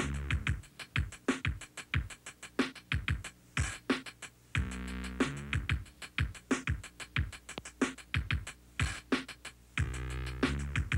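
Instrumental hip-hop backing beat: a steady run of sharp drum hits, with a held chord that comes back about every five seconds.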